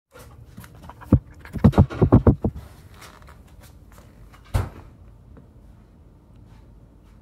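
Knocks and thumps on a phone's microphone held up to a puppy's nose: one sharp thump about a second in, a quick run of about six louder knocks just after, and a single thump a couple of seconds later, over faint room noise.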